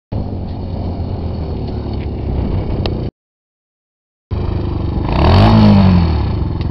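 Suzuki quad bike's engine running under throttle, then revving up and back down hard about two-thirds of the way through, the loudest part. The sound drops out completely for about a second in the middle.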